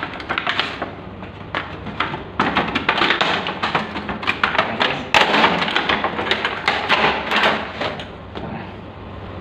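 A clear plastic bag of chrome P-trap fittings being handled and crinkled close to the microphone, with scattered taps and knocks. The crackling is densest from about two and a half seconds in until about eight seconds in, then eases off.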